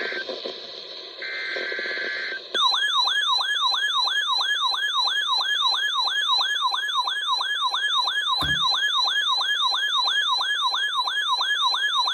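Weather alert radio sounding a tornado-warning alert. First come two short bursts of screechy SAME data-header tones. Then, from about two and a half seconds in, a loud electronic warbling siren alarm sweeps up in pitch about three times a second, with a single thump about eight seconds in.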